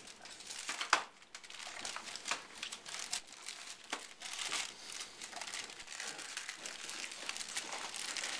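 Gift wrapping paper crinkling and rustling irregularly as a small child handles and picks at a wrapped present, with one sharp tap about a second in.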